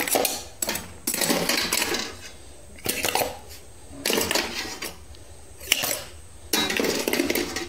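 Small stainless-steel idli cups clinking and clattering against each other and the steamer pot as they are lifted out, in about six separate bursts.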